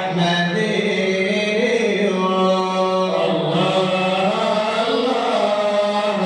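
A male voice chanting Arabic prophetic praise poetry (madih) in long, held, ornamented notes that glide between pitches, over a steady low drone.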